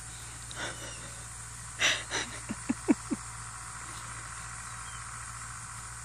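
English bulldog snuffling and snorting with its nose to the ground: two loud sniffs about two seconds in, then four quick short snorts.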